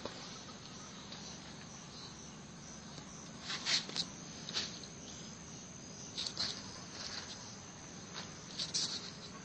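Outdoor ambience of insects: a steady high-pitched buzz, with a handful of short high chirps, the loudest about three and a half seconds in and again near the end.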